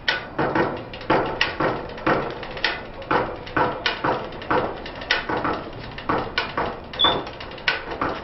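A steady percussive dance beat of sharp claps and knocks, about two a second, with a brief high squeak about seven seconds in.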